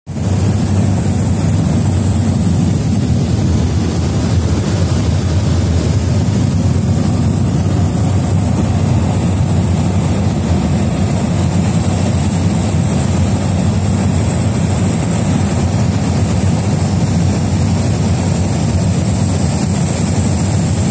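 Cabin noise inside a Cessna 208B Grand Caravan in flight: its single turboprop engine and propeller running as a steady, loud, low drone, with a thin high-pitched whine held on top.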